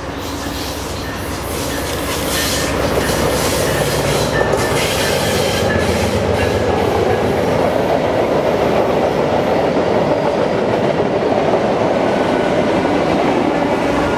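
VIA Rail passenger train passing close by on a curve: the diesel locomotive and then the coaches rumble over the rails, with clicks from the wheels. It grows louder over the first two or three seconds, then holds steady.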